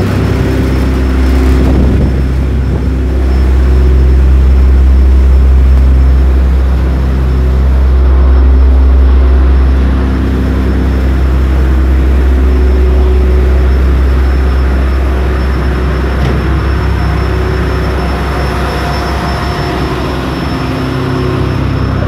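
A ferry's engines running with a steady deep drone: a heavy low rumble with several steady hum tones above it, swelling a little a few seconds in.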